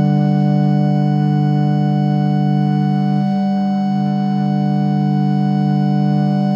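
Minimalist chamber music for viola, accordion, two double basses and clarinet: a dense chord of long, steady held tones, with a brief wavering in the low tones a little past the middle.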